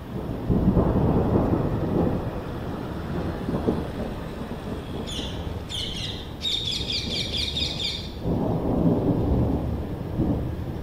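Thunder rumbling: a long rolling rumble begins about half a second in and fades slowly, and a second rumble comes near the end. In the lull between them a bird chirps, ending in a quick run of trilled notes.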